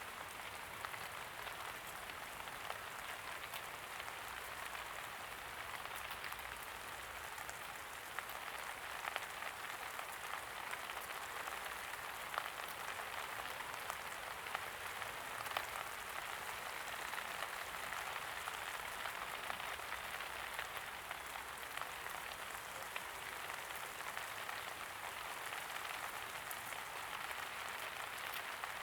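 Steady light rain falling, a continuous patter with scattered individual drops ticking a little louder here and there.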